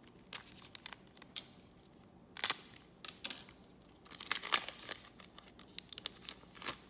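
Trading cards and their foil pack wrapper being handled: irregular runs of sharp crinkling and rustling crackles, the busiest stretch a little past the middle.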